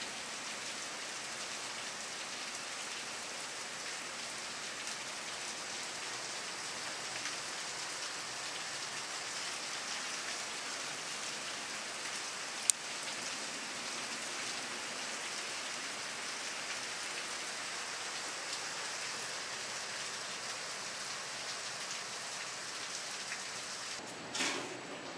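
Heavy rain falling steadily, an even hiss of downpour on lawns and pavement. A single sharp click about halfway through, and a few soft knocks near the end.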